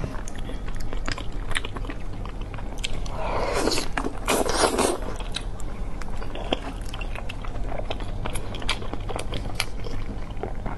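Close-miked wet chewing and smacking of sticky, gelatinous braised meat, full of small mouth clicks, with a louder sucking noise for about two seconds starting about three seconds in.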